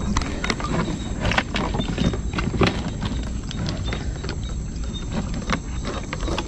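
Hands working a wet mesh fish trap to grab a snakehead fish inside it: irregular close clicks, knocks and rustles of net, wire hoop and plastic, several a second.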